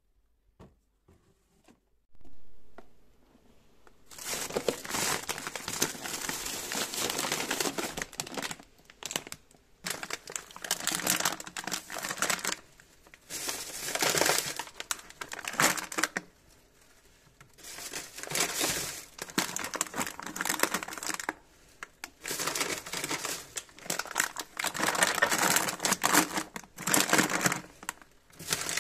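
Plastic snack wrappers and packets crinkling and rustling in long stretches as they are handled and stacked on a shelf, with a few short pauses. The first couple of seconds hold only a few faint clicks.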